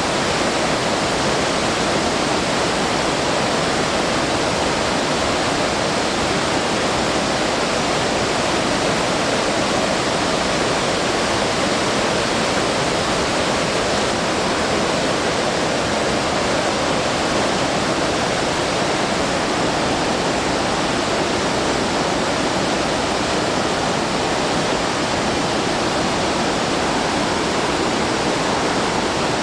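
Waterfall rushing steadily: a constant, fairly loud roar of falling water with no breaks.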